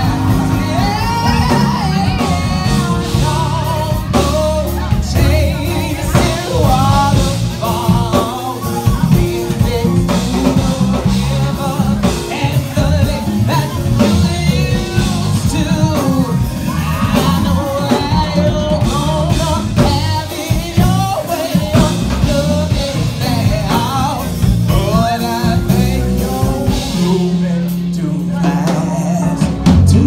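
Live band music: a vocalist singing over drums and keyboard.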